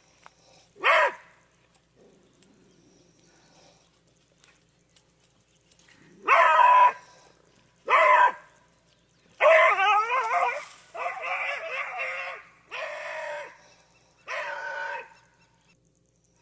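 A dog yelping and hollering in distress while a lizard goes after it: a few sharp yelps, then longer wavering cries about ten seconds in.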